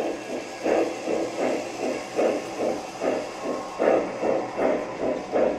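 Lionel O gauge model steam locomotive's onboard sound system chuffing steadily, about three hissing steam chuffs a second.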